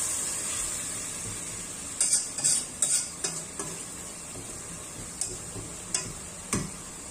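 Metal slotted spatula stirring carrots, raisins and spice masala in a pot as it sizzles steadily while frying down, with sharp scrapes and taps of the spatula on the pot, several in a cluster about two to three seconds in and a few single ones later.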